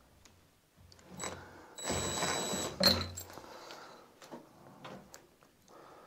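Cordless drill-driver running for about a second with a steady whine, driving a screw to fix a door latch, then a sharp click and a few light knocks.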